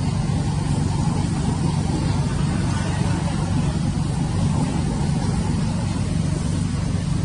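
A steady low mechanical hum with a hiss over it, like a motor running nearby. It holds an even level throughout.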